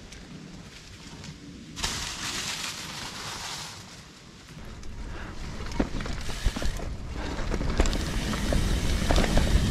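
Trek Fuel EX mountain bike riding a dirt singletrack trail: tyre and rushing-air noise that starts suddenly about two seconds in, eases briefly, then builds with many sharp rattles and clicks from the bike over rough ground.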